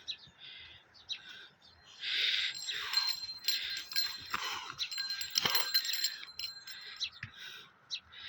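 Birds chirping and calling in a busy, irregular chatter, densest from about two seconds in to near the end, with a thin steady high whistle running under it.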